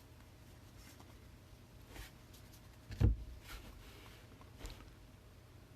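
Trading cards being handled and sorted on a table: faint rustles and soft taps over a low hum, with one louder thump about three seconds in.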